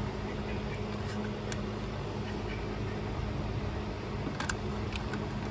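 Steady mechanical hum, with a few light clicks and taps of a screwdriver working at plastic trim and wiring clips under the dashboard, a small cluster of them just past halfway.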